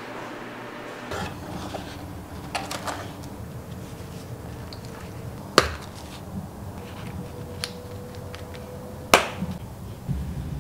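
Metal snap buttons on a tent-fabric wallet clicking: one sharp snap about halfway through as the wallet is opened and another near the end as it is closed, with light handling clicks and rustle before them over a steady low hum.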